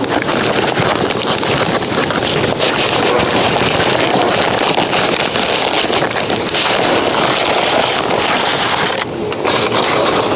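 Brown kraft paper wrapping rustling and crinkling as it is pulled off a potted plant close to the microphone, with a short lull near the end.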